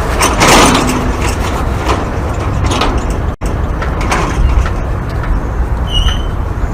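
Metal gate being moved, with a loud scrape and rattle of metal about half a second in over a steady low rumble. After a brief dropout a little past three seconds, more metal rattling follows, then a short high squeak near the end.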